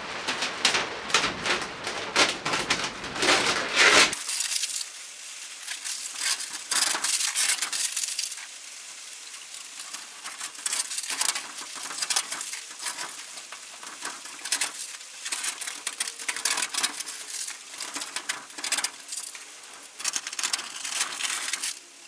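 Masking film and tape being peeled off a corrugated steel garage door, crackling and rustling irregularly. A low background rumble stops suddenly about four seconds in.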